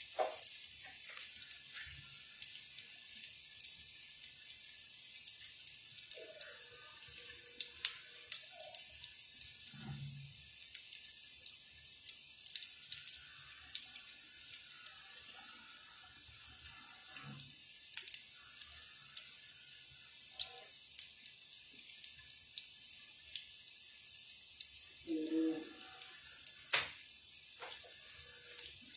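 Garlic cloves frying in hot mustard oil: a steady soft sizzle with scattered small crackles, and one sharp click near the end.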